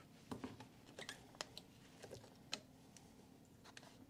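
Faint, irregular light clicks and ticks from hands handling brown kraft-paper build-up tape, pulling it off its roll and laying it against a golf grip on the bench.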